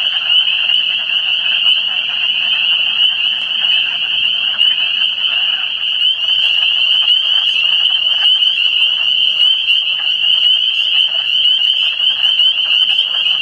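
Loud, dense chorus of spring peepers: many overlapping high, short rising peeps merge into one steady shrill band. Lower frog calls are mixed in beneath it.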